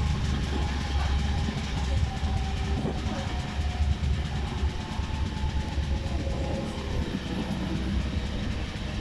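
Passenger train running along the line, heard from a carriage window: a steady rumble of wheels on the rails.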